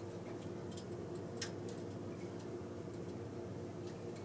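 A few faint, light clicks and ticks as yarn loops are hooked by hand onto the metal latch needles of a Singer knitting machine, one a little sharper about one and a half seconds in, over a faint steady hum.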